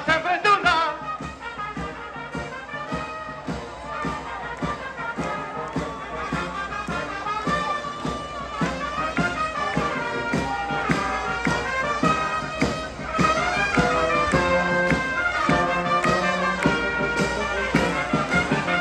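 Live brass band playing a lively tune: trumpets, trombones, saxophone and sousaphone over a steady beat.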